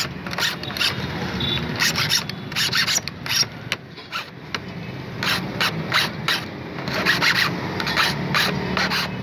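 A flat hand file rasping back and forth across a metal key blank, cutting a key by hand. The strokes come quickly, about two to three a second, in runs, with a short pause about four seconds in.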